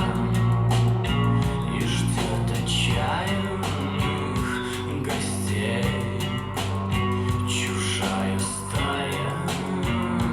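Rock song with guitar, bass and drums played back through a pair of quarter-wave resonator speakers with Fostex P1000K full-range drivers; an instrumental passage between the vocal lines.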